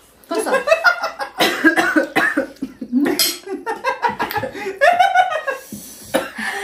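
People coughing and laughing while eating extra-spicy 3x noodles: coughing from the chilli burn, broken by bursts of laughter.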